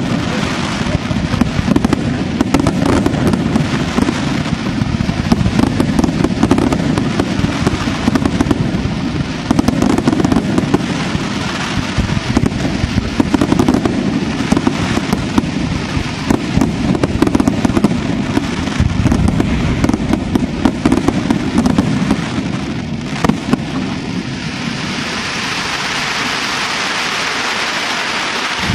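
Aerial fireworks shells bursting in a dense, continuous barrage of bangs and crackle. About 24 seconds in, the sharp bangs thin out into a steadier crackling hiss.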